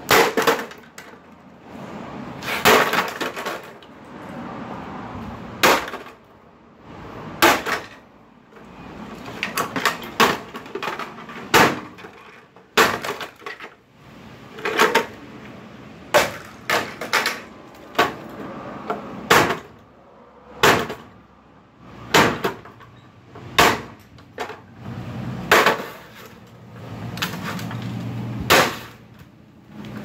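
Sledgehammer blows smashing a broken Keurig coffee maker on asphalt: a long run of sharp hits about every one to two seconds, some in quick pairs, with the machine's casing cracking and breaking apart.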